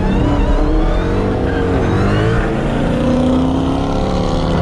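Dodge Charger SRT Hellcat's supercharged 6.2-litre V8 running hard under throttle, its pitch rising and falling as it revs.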